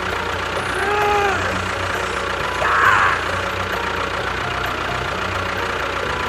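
Steady engine-like running, with short whistle-like tones that rise and fall about one second and three seconds in.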